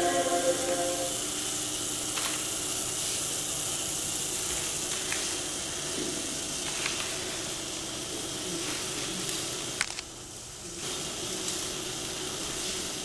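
A steady hiss with a few faint clicks through it, dipping briefly about ten seconds in.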